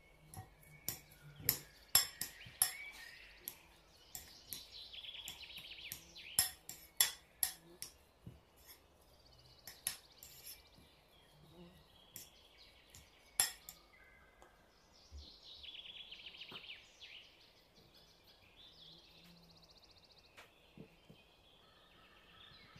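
Hands working soft yeast dough in a glass bowl and then on a silicone mat, giving a string of sharp clicks and taps, dense in the first half and sparser later. Birds chirp faintly in the background.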